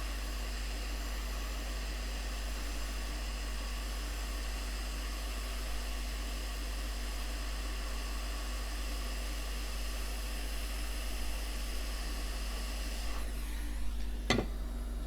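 Hot air rework station blowing a steady hiss of air with a faint whine from its fan. Near the end the hiss falls away, followed by a sharp click.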